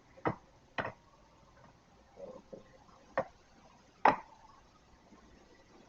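Sharp plastic clicks and knocks, five in all spread over several seconds, with a few softer handling sounds a little after two seconds in, as the ThinkPad E431 laptop's case is closed up and reassembled.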